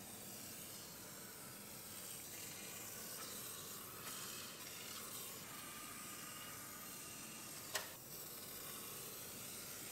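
Aerosol can of cavity wax spraying through a long extension wand: a faint, steady hiss. A single sharp click about eight seconds in.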